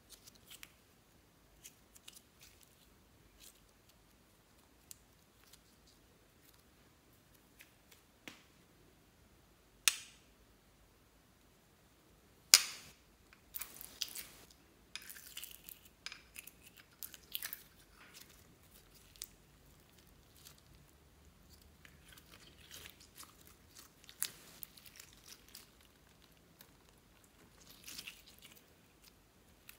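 Hands working slime and small plastic beads over a glass dish: scattered soft clicks, crackles and squelches, with two sharper taps about ten and twelve and a half seconds in and busier runs of small clicks in the middle and near the end.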